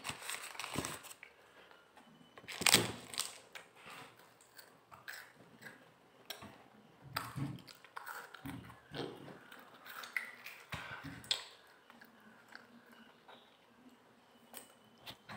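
Kit Kat chocolate-covered wafer being bitten and chewed: irregular small crunches and chewing sounds, with one louder sharp sound a little under three seconds in.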